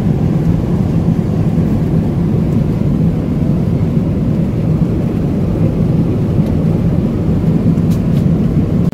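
Steady low drone of a jet airliner's passenger cabin, the hum of engines and air-conditioning heard from a seat inside.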